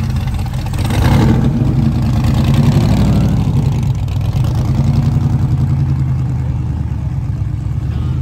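Car engine running at low revs, briefly louder about a second in and again around three seconds, then running steadily.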